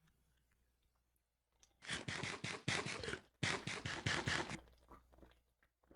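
Fast gulping as a warm canned drink is chugged: two runs of quick swallows, the first starting about two seconds in, with a brief break between them.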